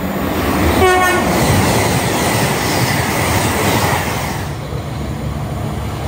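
Great Western Railway Intercity Express Train (Class 800-series) giving one short horn toot about a second in, then rushing through at speed with a loud noise of wheels and air. Near the end this gives way to a lower, steadier rumble.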